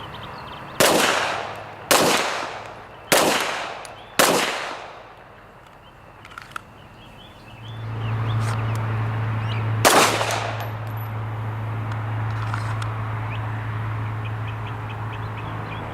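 9mm Glock 34 pistol firing four shots roughly a second apart, each with a short ringing tail, then one more shot several seconds later. A steady low hum comes in about halfway through.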